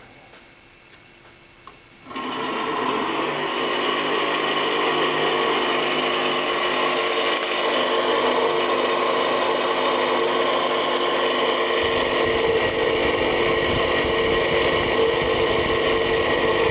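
Small battery-powered fan motor of a Marchesini Starlight toy refrigerator switching on with a click about two seconds in, then running steadily with a humming buzz.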